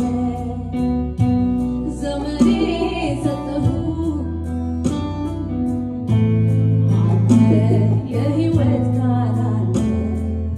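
A woman singing an Amharic/Tigrinya worship song into a microphone, accompanied by an electronic keyboard playing held chords over a bass line. The accompaniment gets louder and fuller about six seconds in.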